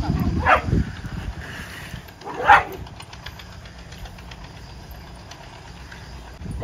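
Dog barking: a short bark about half a second in and a louder one about two and a half seconds in, over a low steady rumble.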